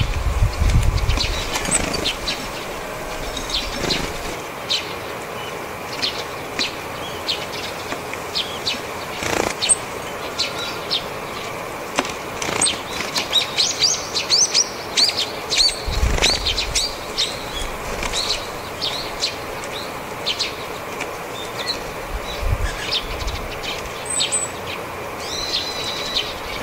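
Japanese tits flying in and out close by, with wingbeats as they land and take off, and their short calls. Eurasian tree sparrows chirp and a brown-eared bulbul gives high piping calls in the background.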